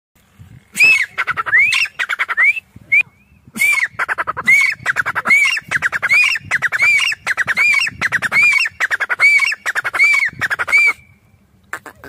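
Grey francolin (teetar) calling: a loud, fast series of repeated phrases, each a quick run of clicking notes ending in a ringing note that rises and falls, a little more than one phrase a second, with a short break about three seconds in.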